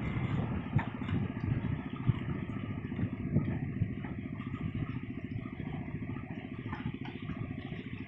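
An engine running steadily with a rapid, even pulse, easing slightly in level.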